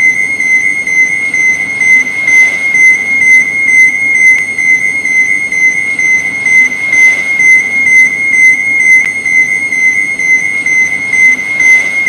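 Electronic overload warning alarm: a continuous high-pitched tone that pulses in loudness about twice a second.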